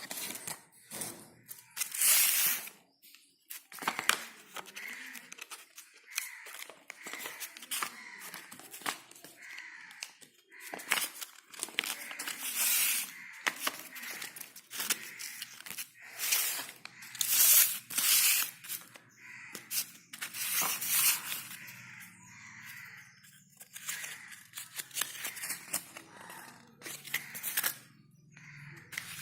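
Paper and card being worked by hand: a run of irregular rustling, scraping and tearing strokes, some short and some about a second long.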